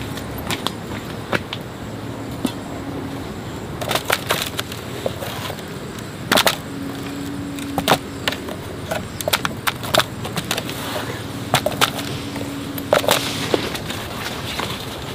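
Irregular knocks and clatters of hard objects being handled, in uneven clusters, over a faint steady hum that comes and goes.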